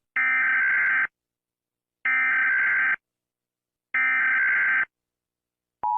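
Emergency Alert System SAME header: three bursts of digital data tones, about a second each and evenly spaced. Near the end the steady two-tone EAS attention signal starts.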